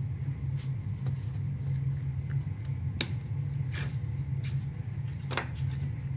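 A steady low rumble with about five scattered short clicks as a hand handles crumbly green slime and plastic capsules on a wooden table.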